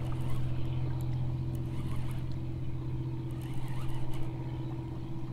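Steady low mechanical hum, even in pitch and level, with a few faint light clicks about three and a half to four seconds in.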